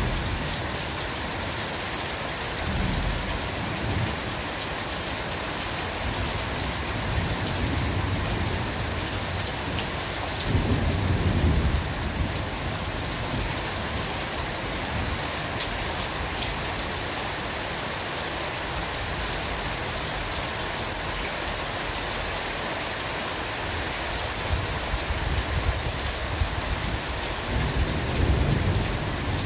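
Steady heavy rain falling in a forest, an even hiss throughout. Low rumbles swell up now and then, the strongest about eleven seconds in and more near the end.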